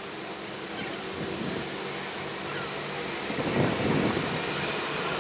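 SA138 diesel multiple unit running in slowly, its diesel engine giving a steady low hum. About three and a half seconds in there is a louder, rougher rush as it draws closer.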